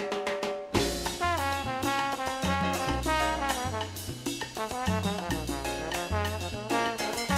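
Music: a lively Latin-style tune led by brass, trumpets and trombones, over a pulsing bass line.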